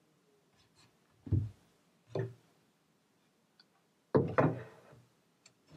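Wooden knocks from a strip of wood and the plywood cabinet being handled and set down. Two single knocks about a second apart, then a louder double knock about four seconds in, with light clicks between.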